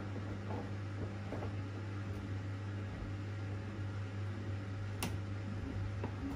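Samsung AI washer dryer's drum turning an unbalanced load as it tries to redistribute the laundry, a steady low motor hum with faint knocks early on. One sharp click comes about five seconds in.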